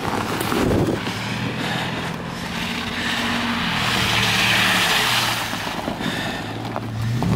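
SUV engines running at low crawling speed on an off-road trail, the engine note shifting slightly as they drive. A hiss of tyres through mud and water swells and fades in the middle.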